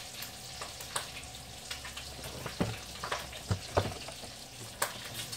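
Objects handled on a kitchen countertop: a cardboard pasta box is put down and plastic salad-dressing bottles are reached for, giving scattered light taps and knocks over a steady faint hiss.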